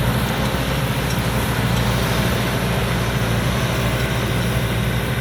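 Rice combine harvester's 260-horsepower engine running steadily at full throttle while harvesting: a constant low drone with the even clatter and hiss of the threshing machinery.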